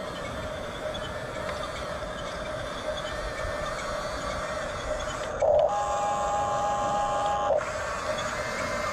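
Small electric drive motors and plastic gearing of a 1/16-scale Hunia 1569 RC bulldozer whirring steadily. A little past halfway, a louder steady tone with several fixed pitches sounds for about two seconds and stops abruptly.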